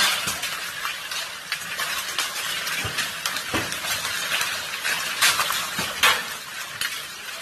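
Hailstones striking hard surfaces: a dense, continuous clatter of small impacts with a few heavier knocks scattered through.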